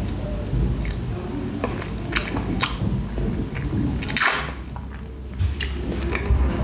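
Close-miked mouth chewing a soft piece of baked pumpkin, with wet clicks and smacks scattered throughout. A louder, short rush of noise comes about four seconds in.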